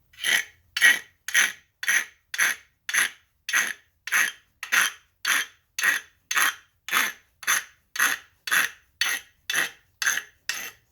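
Horse rasp filing sharp edges off a metal winch part in steady back-and-forth strokes, about two a second, each a short scraping rasp.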